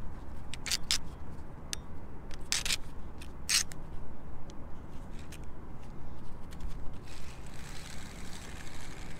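Salt-water-damaged spinning reel being cranked, its insides scraping and grinding as the handle turns. A few sharp clicks come in the first four seconds, and a harsher grinding near the end.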